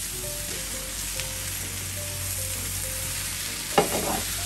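Stir-fry vegetables (bean sprouts, carrot, onion, Chinese cabbage and green pepper) sizzling steadily in an oiled frying pan. Near the end come several quick clatters as chopsticks stir and toss them.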